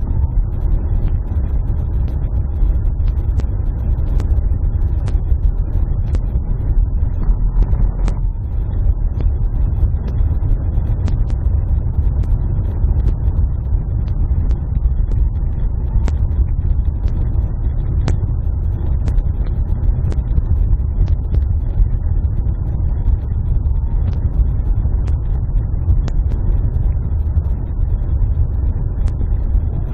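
Car driving along a rough, narrow road, heard from inside the cabin: a steady low rumble of engine and tyres, with scattered small clicks and ticks.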